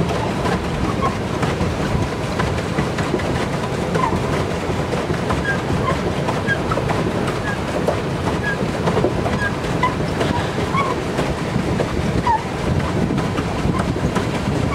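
Pedal-powered swan boat underway, its paddle wheel churning the water with a steady rumbling wash.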